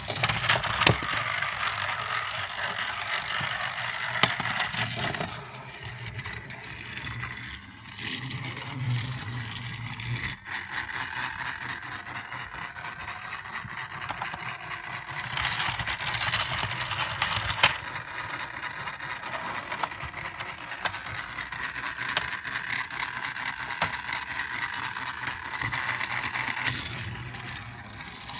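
A battery-powered Trackmaster toy Thomas engine runs along plastic track, its motor and gears whirring with a continuous rattling clatter. Sharp plastic clacks stand out here and there, and a louder clattering stretch comes a little past halfway.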